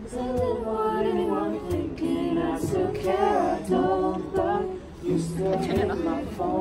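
Several people singing a song together, unaccompanied.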